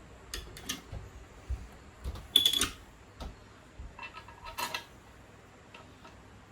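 Metal parts and tools clinking and clanking as they are handled: a series of sharp knocks, the loudest a cluster about two and a half seconds in with a short metallic ring, and another ringing clatter near the middle.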